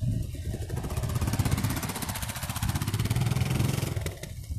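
Motorcycle engine running as a bike rides close past on dirt, its sound dropping off sharply about four seconds in, over the low rumble of other motorcycles running further off.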